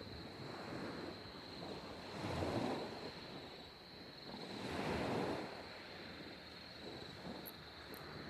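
Sea waves washing in, two swells of surf about two and a half seconds apart.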